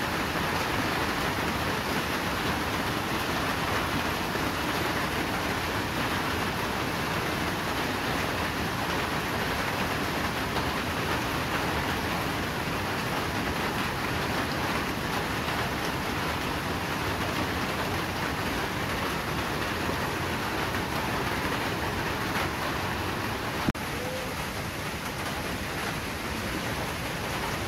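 Steady rain falling on foliage, with one sharp click near the end.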